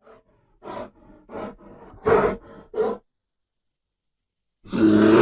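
Bear growling in a run of short grunts, then a longer, louder growl starting near the end.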